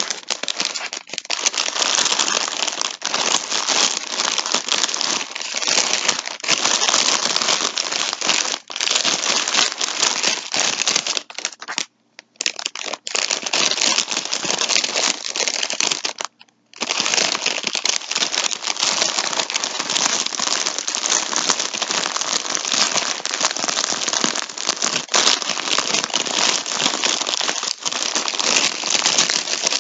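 Plastic yarn packaging crinkling and rustling as a multi-pack of yarn is handled, continuous apart from two brief pauses near the middle.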